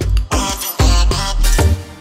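Electronic intro music with a beat of heavy bass hits.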